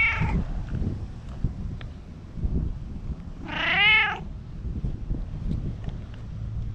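Brown tabby-and-white stray cat meowing: the end of one meow right at the start, then one clear meow, rising then falling in pitch, about three and a half seconds in.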